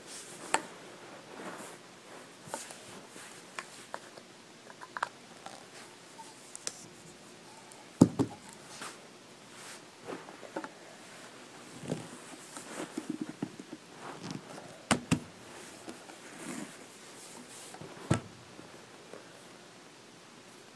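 Irregular clicks and knocks with light rustling as pieces of a bird playset are handled and fitted together, with sharper knocks about 8, 15 and 18 seconds in.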